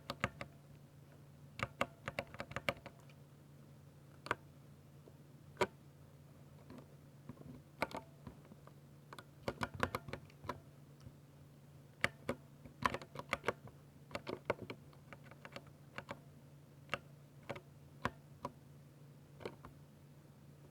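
Typing on a 60%-layout Ducky mechanical keyboard with silver switches: irregular keystroke clicks, some single and some in quick bursts, with short pauses between.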